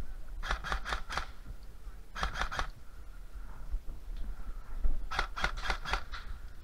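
Airsoft guns firing three short, rapid strings of shots, about five shots a second, with pauses between the strings.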